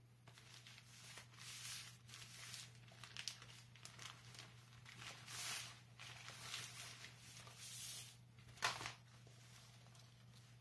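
Frosted plastic packaging bag crinkling and rustling in uneven handfuls as a fabric drawstring backpack is pulled out of it, with one sharper, louder rustle near the end. A low steady hum runs underneath.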